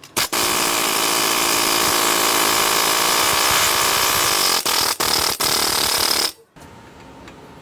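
Handheld power tool running with a steady buzz for about six seconds, cutting out briefly three times near the end, then stopping abruptly.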